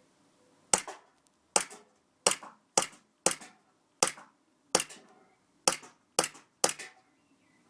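Airsoft Glock pistol firing about ten single shots at an irregular pace, roughly one every half second to second. Each shot is a sharp crack with a short ring after it.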